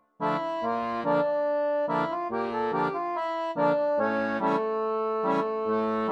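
Background music of held chords and melody notes, starting about a quarter second in and fading near the end.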